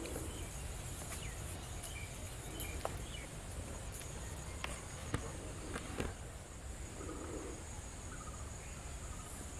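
Rural outdoor ambience: a steady high-pitched insect drone with a few faint bird chirps in the first few seconds and several light clicks a little past the middle.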